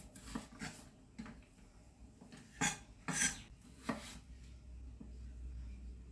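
Chef's knife chopping a raw potato into cubes on a bamboo cutting board: a handful of separate knocks of the blade on the board, with a couple of longer scraping strokes about halfway through, then quieter.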